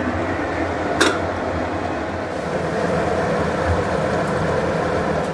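Steady rushing noise of a lit gas burner under an open aluminium pressure cooker of simmering mutton curry, with one sharp knock about a second in.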